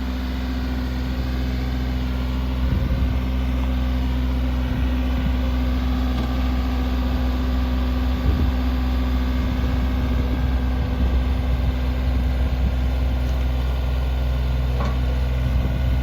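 John Deere 2032R compact tractor's three-cylinder diesel engine running steadily, with a few short knocks over the engine.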